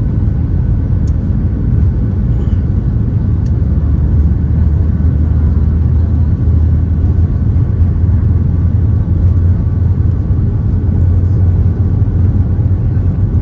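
Steady low rumble of engine and airflow noise inside the cabin of a Boeing 737 MAX 8 airliner, with no change in pitch or level.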